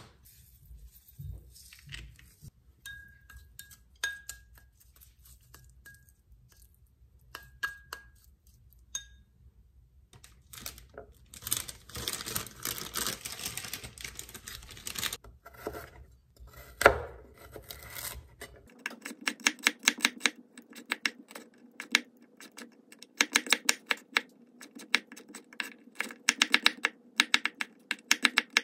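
Scattered light clicks and knocks of bottle and bowl handling, then a kitchen knife cutting a carrot into thin strips on a wooden cutting board: a fast, even run of knife taps on the board through the second half.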